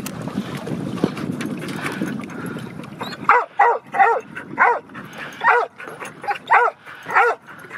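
A dog whining and yipping in excitement, about eight short high-pitched cries starting about three seconds in, after a stretch of low rushing noise.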